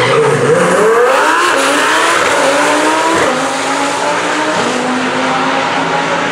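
Twin-turbo Lamborghini Huracán V10 launching hard off the drag-strip start line and accelerating, its engine pitch climbing and falling back through several upshifts.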